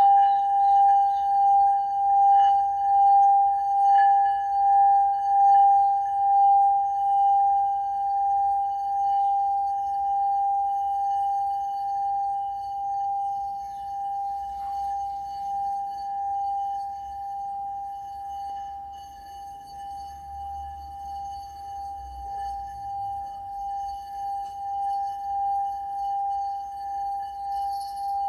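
Singing bowl ringing one steady, pulsing tone with faint overtones. It fades slowly through the middle, then swells again near the end.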